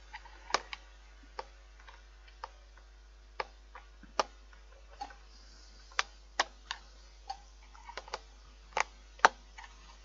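The hard plastic casing of a Philips fan heater being handled and pressed: about twenty sharp clicks and knocks at irregular intervals, a few much louder than the rest.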